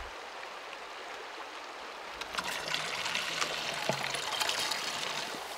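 Shallow creek water trickling. About two seconds in it grows louder and splashier as a plastic water bottle is dipped and filled in the stream.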